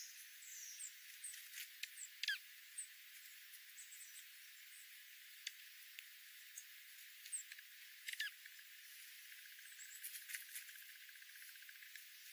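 Faint birdsong: scattered short high chirps and a few quick downward-sliding calls over a steady hiss.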